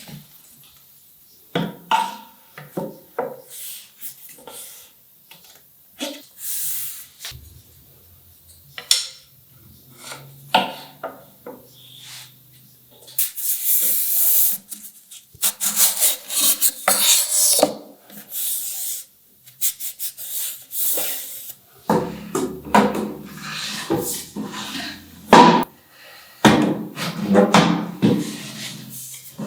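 Hand work on wooden pieces: scattered knocks and taps of wood on wood, with longer stretches of scraping and rubbing on wood through the middle and latter part.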